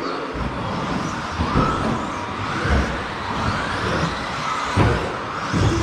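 Electric RC buggies running laps on a carpet track, their motors whining up and down in pitch as they accelerate and brake, with a couple of sharp knocks near the end.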